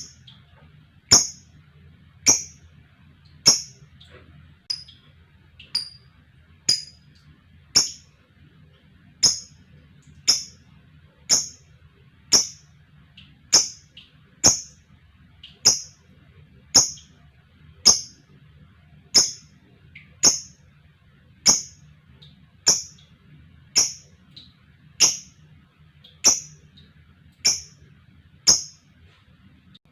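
A lovebird giving short, sharp, high single chirps, evenly spaced about once a second, over a faint steady low hum.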